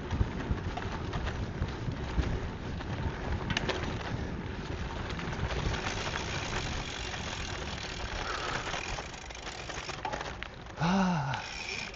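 Gravel bike rolling along a dirt trail, its tyres crunching and crackling over the surface, with wind on the microphone. The rider puts the crackle down to nuts being crushed under the wheels. Near the end comes a short pitched sound that rises and then falls.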